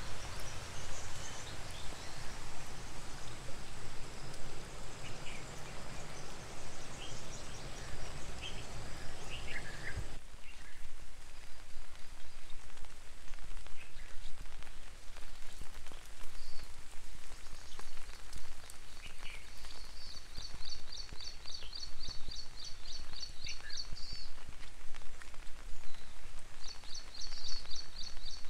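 Very light rain falling on foliage and a wet road, with scattered dripping ticks and occasional short high chirps. About a third of the way in, a low background rush drops away abruptly. In the last third a high, rapid chirping call repeats in two long runs of evenly spaced notes.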